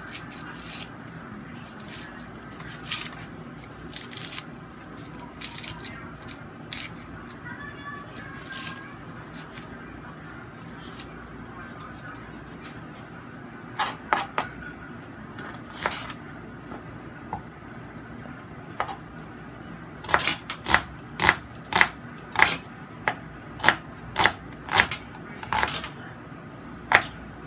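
Kitchen knife cutting on a plastic chopping board: scattered taps at first, then, about two-thirds through, a run of sharp knocks about twice a second as a red onion is chopped.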